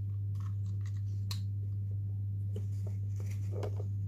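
A few faint clicks and taps as the small parts of a handheld incense burner are handled, over a steady low hum.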